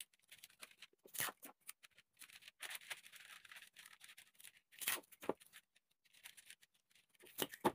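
Paper sewing pattern being folded and smoothed by hand on a cutting mat: a few faint, short rustles and scrapes of paper.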